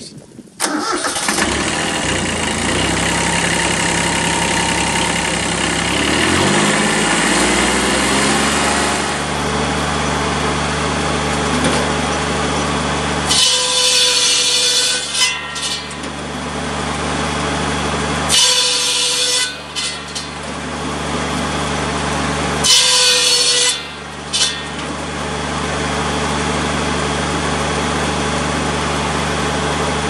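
Kubota B7100 tractor's three-cylinder diesel starts and runs, and its pitch rises over the first several seconds as it and the PTO-driven buzz saw come up to speed, then holds steady. The big circular blade then cuts through sawmill slabs three times. Each cut is a piercing high-pitched screech lasting about a second, louder than a chainsaw, over the running engine.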